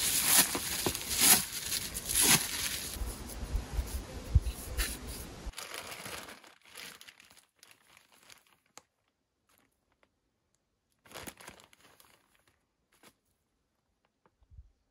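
Cling film crinkling and tearing as it is pulled off a sapling's root ball, busy for about five seconds, then only faint rustles.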